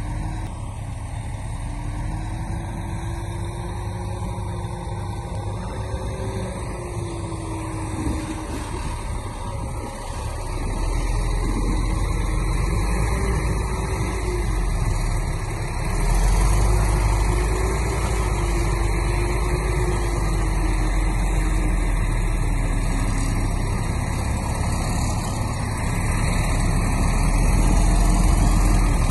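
Heavy earthmoving machine's diesel engine working under load with a wavering engine note. It gets louder about sixteen seconds in.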